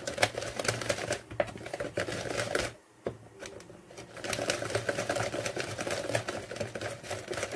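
A whisk clicking and rattling rapidly against a plastic mixing bowl as semolina batter is beaten, with a brief pause about three seconds in.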